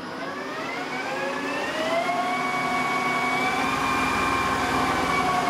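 Style 410 CNC lathe's spindle drive whining as the spindle speeds up from about 540 to about 1230 rpm over the first two seconds, then running steadily at that speed. The pitch begins to ease down near the end as the speed is turned back.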